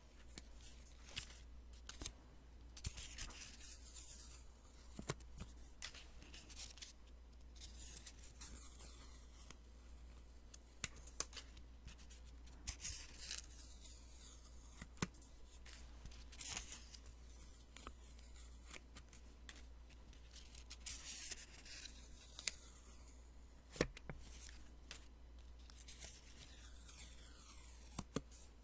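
Post-it sticky notes being peeled off one after another at close range: repeated short papery ripping strokes, with small ticks and taps of paper in between.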